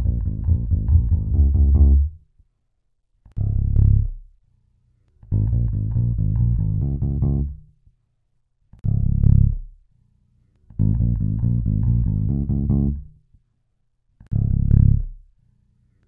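A recorded bass guitar part looping, heard through a linear-phase EQ whose bands are being adjusted. It plays three times over: a run of low notes for about two seconds, a pause, then a single short note, with silences between.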